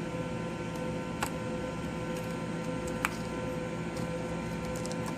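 Steady electrical hum with two faint light clicks, about a second in and about three seconds in, from handling the wires inside a partly disassembled laptop.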